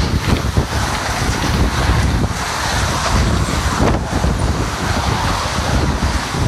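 Wind buffeting the microphone in choppy low gusts, over a steady rush of road traffic passing close by.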